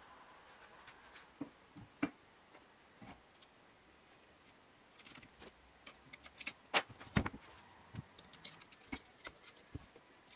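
Scattered clicks and metallic clinks of a steel bandsaw blade-guide bracket being handled and fitted onto a square steel tube with a screw, the two loudest knocks about seven seconds in.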